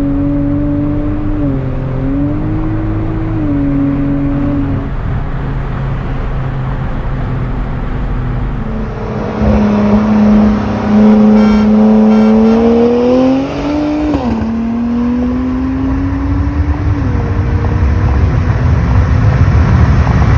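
Kia Stinger's tuned twin-turbo V6 under hard acceleration in a roll race: after a few seconds of part-throttle cruising it gets louder about nine seconds in, the engine note climbing in pitch, dropping at an upshift around thirteen seconds and climbing again to a second shift near the end, with road and wind noise building.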